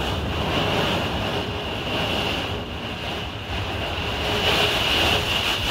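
Wind-driven heavy rain from a severe thunderstorm beating on a fifth-wheel camper, heard from inside: a dense, steady rush that swells louder about four seconds in as a gust hits.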